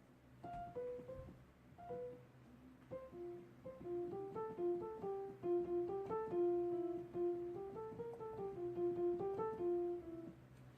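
Quiet instrumental music: a simple melody played one note at a time. It starts with a few scattered notes, then runs on as a steady tune from about three seconds in.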